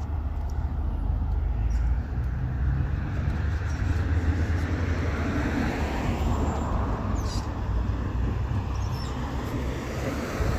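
City road traffic: a steady low rumble of vehicle engines, with tyre and road noise swelling as a vehicle passes about halfway through.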